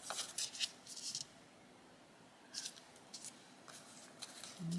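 Clear plastic sticker sheets crinkling and rustling as they are handled, in a few short bursts.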